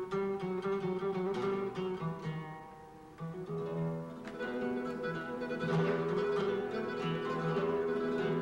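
Two flamenco guitars playing together: quick runs of plucked notes over ringing chords. The playing softens about two and a half seconds in, then comes back in with a sharp attack about a second later.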